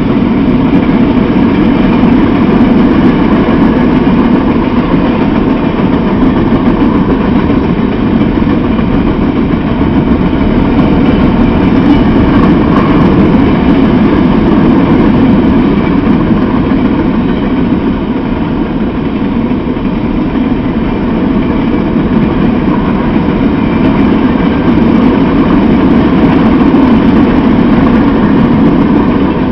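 Freight train of open-top hopper cars rolling past, a loud, steady rumble of wheels on rail that swells and eases slowly.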